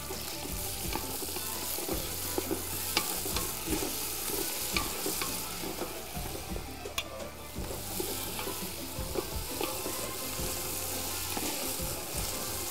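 Onions and tomato paste sizzling in an aluminium pot while a wooden spoon stirs and scrapes through them, with scattered light knocks of the spoon on the pot.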